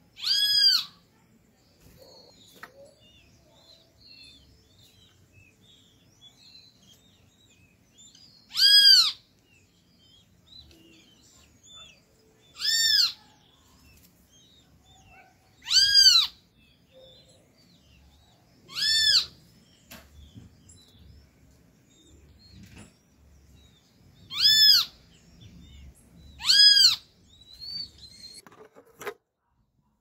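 Great kiskadee calling: a loud single arched note about half a second long, repeated seven times at irregular gaps of a few seconds, with faint chirps of other birds between.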